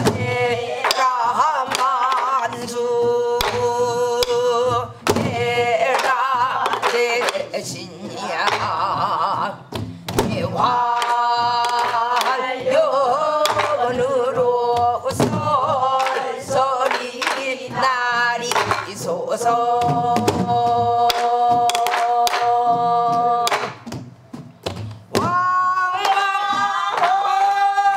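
A woman singing a Korean traditional song in pansori style, long notes with a wide wavering vibrato broken by short breaths, while beating a buk barrel drum with a stick. The drum strokes knock through the singing, and a long held note comes near the end.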